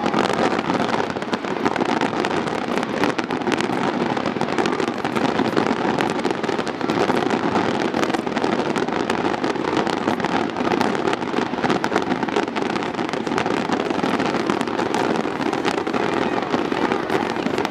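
Fireworks going off in a dense, continuous crackle of many small bangs packed closely together, without a break.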